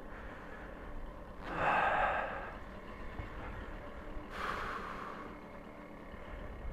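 Babetta 210 moped coasting with its engine switched off to save fuel: only a low wind and road rumble, with two short breathy puffs, the louder about a second and a half in and another just past four seconds.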